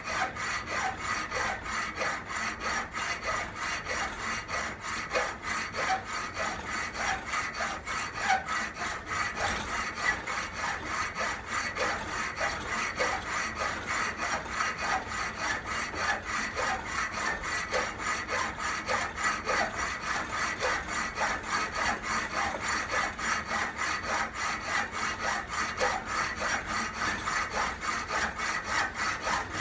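Hacksaw cutting through 1-inch aluminum bar stock held in a vise, in steady, even back-and-forth strokes.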